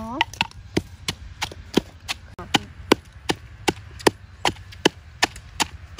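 Wooden pestle pounding chilli and garlic spice paste in a wooden mortar: a steady series of dull knocks, about two or three strokes a second.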